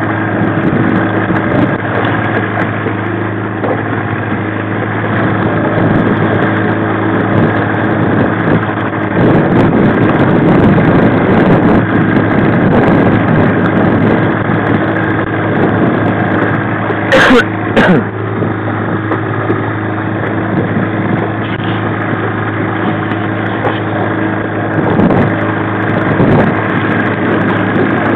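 A 1995 Mariner 15 hp two-stroke outboard running steadily at slow trolling speed. Two short, sharp knocks come a little past halfway.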